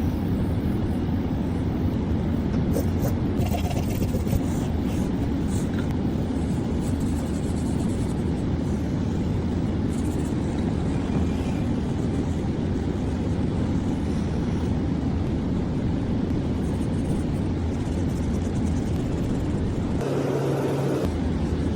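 Steady low rumble of a running vehicle, unchanging in level, with a short pitched tone about twenty seconds in.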